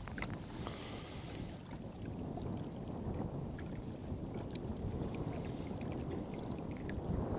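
Wind rumbling on the microphone and water lapping against shore rocks, with a few faint light clicks.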